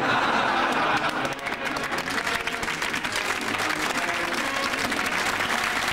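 Studio audience applauding, a dense steady patter of many hands clapping.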